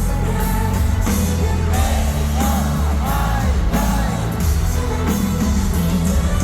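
Live rock band music, loud and steady, with a woman singing a melodic line through the middle.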